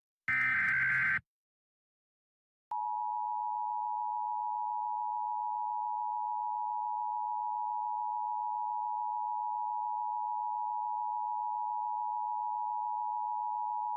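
Emergency Alert System signalling: a one-second burst of SAME digital header data ends about a second in. After a short pause, the steady two-tone EAS attention signal starts about three seconds in and holds unbroken, announcing an incoming alert message.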